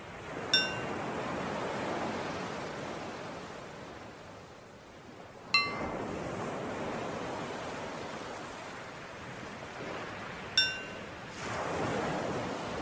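Ocean waves washing in and out, with a small bell struck three times, once every five seconds, as the cue to breathe in and breathe out. The middle strike is at a different pitch from the other two.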